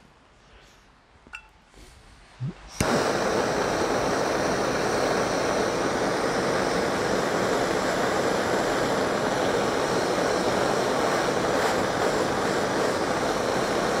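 Handheld gas torch lit about three seconds in, then burning with a steady hiss while it heats pruning shears red-hot to sterilise the blades. A few faint clicks of handling come before it lights.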